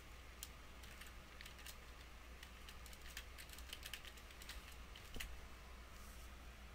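Computer keyboard typing: a faint run of irregular keystrokes that stops about five seconds in, over a steady low hum.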